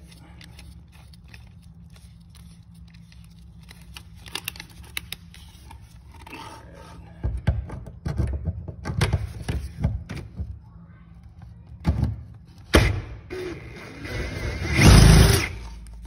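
Cordless drill with a socket extension working the bolts on a garage door's bottom roller bracket in short bursts, mixed with metal clunks and scraping. The longest and loudest run of the drill comes near the end.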